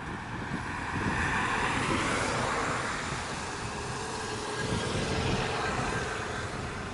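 Traffic passing on a road, one vehicle's tyre and engine noise swelling to a peak about two to three seconds in and then fading, over a steady low rumble of wind buffeting the microphone.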